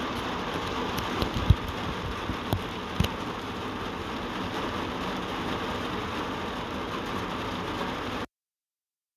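Steady rain falling on a vehicle's windshield and body, with a few sharp taps about a second and a half in and again around three seconds. The sound cuts off abruptly to dead silence about eight seconds in.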